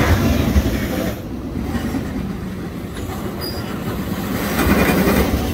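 New Texas Giant roller coaster train running along its track: a loud rumble and clatter of wheels on rail that swells again near the end.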